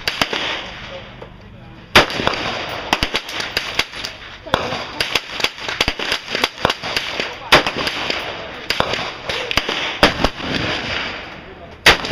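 Gunshots on a shooting range: a run of sharp shots at irregular spacing, many of them fainter, with two much louder shots about two seconds in and near the end, each followed by ringing.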